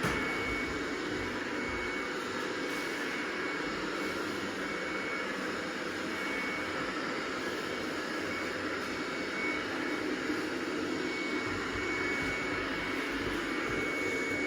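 Robot vacuum cleaner running steadily, a constant motor whir and hiss with a thin high whine.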